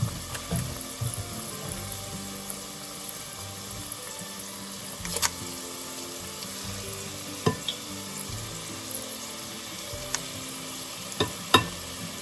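Hush puppies deep-frying in hot vegetable oil, a steady sizzle, with a few sharp clicks scattered through it; the loudest click comes near the end.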